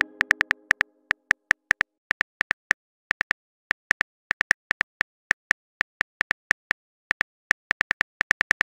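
Phone keyboard key-tap clicks, a quick uneven run of taps a few per second with short pauses, the typing sound of a message being written. The ringing tail of a message-alert chime fades out at the start.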